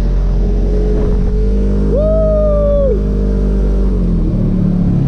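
Polaris RZR 1000 side-by-side's parallel-twin engine running steadily, its note easing down about four seconds in. A single high pitched call or tone, about a second long, cuts across it about two seconds in.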